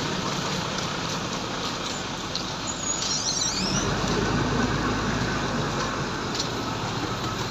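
Diesel bus engines idling in a queue, a steady rumble that deepens about halfway through as a bus close by runs on.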